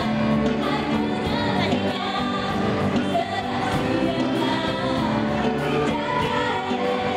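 Live band music with gendang drums and several voices singing together, played continuously.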